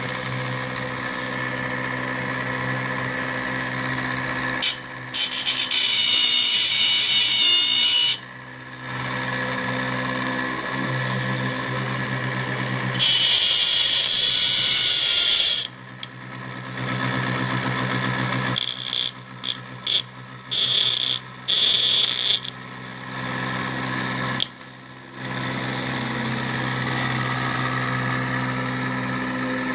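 Universal motor converted to a pulse motor, running on its electronic driver with a steady hum. Three times it is drowned by a loud high scraping, the last one stuttering, as a plastic strip rubs against the spinning drive coupling.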